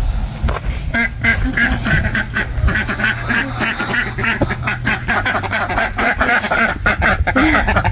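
Domestic ducks quacking in a rapid, continuous series, with scattered short knocks mixed in.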